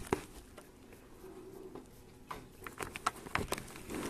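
Light clicks, knocks and rustles of handling noise picked up by a lapel microphone on a motorcycle helmet as the wearer moves about: one sharp click just after the start, a quiet stretch, then a run of light clicks in the second half.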